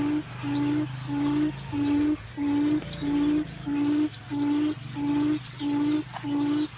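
Forest quail (puyuh hutan) lure call: a short low hooting note repeated very evenly, about one and a half times a second. A thin high rising chirp comes in roughly once a second above it.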